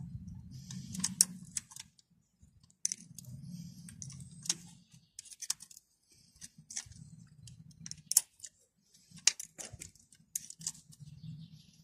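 Irregular metal clicks and clinks of a combination wrench on the top-cover bolts of a tractor's diesel injection pump, over a low rumble that comes and goes.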